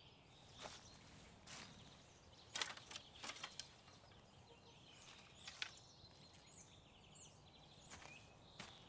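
Near silence with faint outdoor ambience: distant birds chirping, and a handful of soft, scattered knocks or steps, the most prominent in a cluster about three seconds in.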